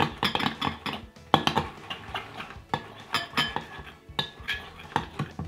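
Metal spoon stirring thick PVA glue slime in a glass mixing bowl, clinking and scraping against the glass in quick, irregular strokes as food colouring is mixed in. The sharpest clink comes about a second in.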